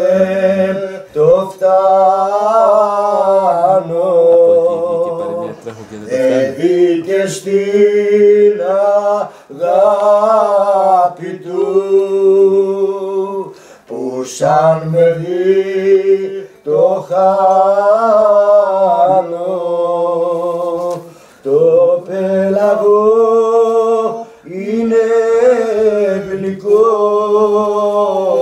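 Men singing a slow Greek song unaccompanied, their voices held in long, wavering phrases a few seconds each with short breaks for breath.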